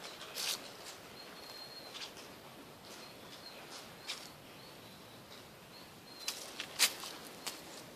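Faint, short high-pitched calling notes recurring irregularly, one held for about a second near the start, with a few sharp clicks and rustles in between.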